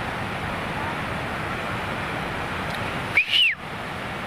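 Steady rush of a flooded stream. About three seconds in comes one short, high whistle that rises and then falls, louder than the water, which briefly cuts out under it.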